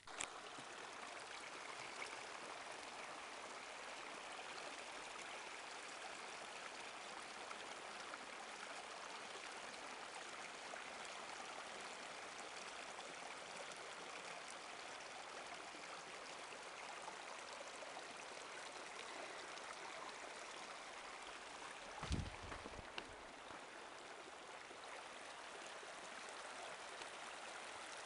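Fresh rainstorm runoff flowing over gravel and around rocks in a shallow wash: a steady rushing of water. A single brief thump comes about three quarters of the way through.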